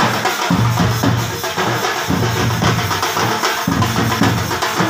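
Procession drum band beating large steel-shell bass drums and flat frame drums with sticks. Deep drumming comes in repeating phrases about a second long, with a continuous rattle of sharper drums on top.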